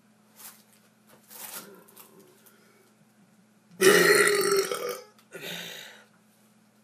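A man burping: after two faint short sounds, one long loud burp about four seconds in, followed at once by a shorter second burp.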